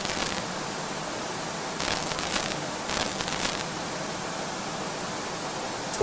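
Analogue TV static sound effect: a steady rushing hiss of white noise, broken by short louder bursts of glitchy crackle about two seconds in, again around three seconds, and at the very end.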